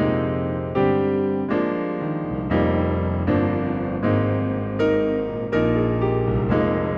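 Casio Privia PX-S7000 digital piano playing one of its factory keyboard sounds: a steady series of chords, a new one struck about every three-quarters of a second, each fading before the next.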